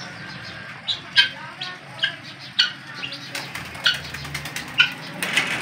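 Aviary birds giving short, sharp calls, about eight of them at uneven intervals, with a brief flutter of pigeon wings.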